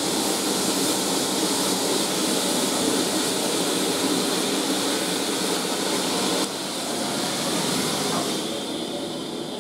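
Steady loud hiss of steam from the standing GWR Castle-class locomotive No 4079 Pendennis Castle, dropping in level about six and a half seconds in and fading away near the end.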